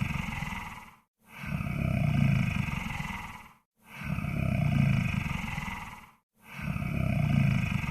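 Monster snore sound effect: deep, rumbling snoring breaths that each swell and fade, repeating about every two and a half seconds with a brief silent gap between them.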